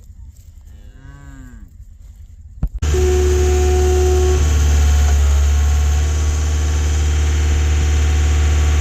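Cattle mooing: a short call about a second in, then a longer held moo over a loud, steady low rumble that starts abruptly about three seconds in.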